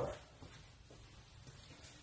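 Quiet room tone with a few faint footsteps of sneakers on a concrete floor.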